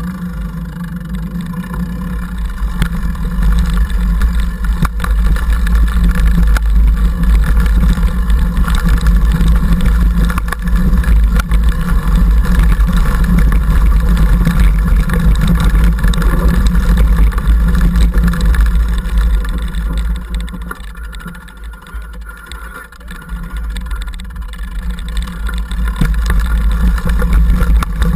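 Wind buffeting and the rumble and rattle of a mountain bike riding over a country lane and a grassy track, picked up by a camera microphone mounted on the handlebar, with scattered knocks from bumps. It eases off for a few seconds about three-quarters of the way through.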